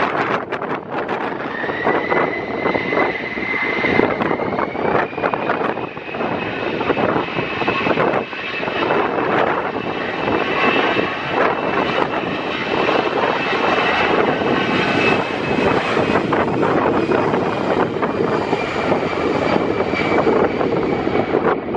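Airbus A320 jet engines spooling up for take-off: a high whine that rises over a few seconds, about two seconds in, and then holds steady. Gusty wind buffets the microphone throughout.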